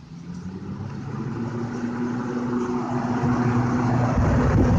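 Vintage electric box fan with a Robbins & Myers motor and seven-blade propeller spinning up after being switched on: a steady motor hum under a rush of air that grows louder as the blades gather speed, with wind buffeting the microphone near the end.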